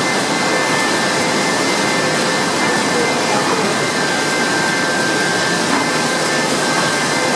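Conveyor and packaging machinery of a food production line running: a loud, steady whirring noise with a couple of faint high whines held over it.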